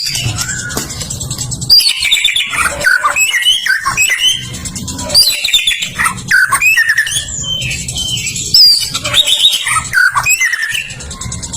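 White-rumped shama (murai batu) singing: a fast, varied run of loud whistles, slurred glides and trills that goes on without a break.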